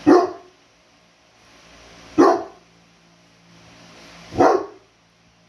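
A giant-breed dog barking three times, single deep barks about two seconds apart, with a softer build-up before the second and third.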